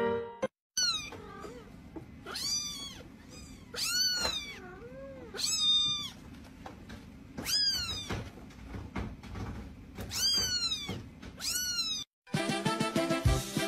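Young kittens mewing: about a dozen high, thin mews, each sliding down in pitch, with a low hiss beneath. Music plays briefly at the start and comes back near the end.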